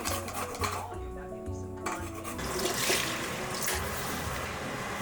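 Soft background music with a steady bass line, over light kitchen handling noise; a burst of hiss swells near the middle.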